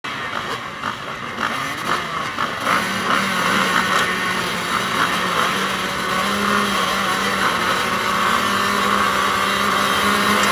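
Several motocross bikes revving on the start line, waiting for the gate to drop. Short blips of throttle in the first few seconds, then the nearest engine is held at a steady note while the whole sound slowly grows louder.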